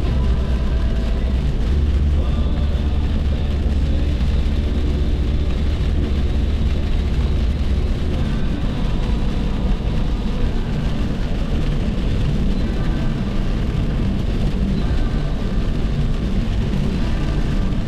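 Steady road and engine noise of a vehicle cruising on the highway, a loud low rumble that eases a little about halfway through.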